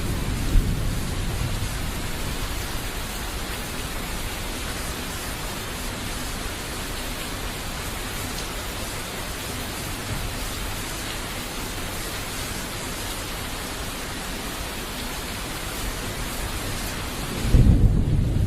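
Thunderstorm: steady rain hissing throughout. A low rumble of thunder fades away in the first second or two, and a new loud thunder rumble breaks in about a second before the end.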